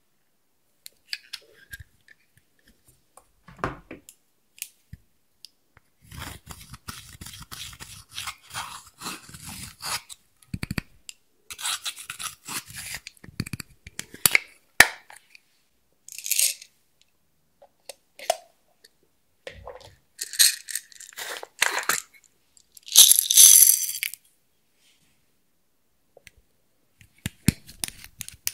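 Handling a plastic eyeshadow compact and digging the pressed eyeshadow out of it with a pick: scattered clicks and taps with short bursts of scratchy scraping and crumbling, the loudest about three quarters of the way through, between quiet gaps.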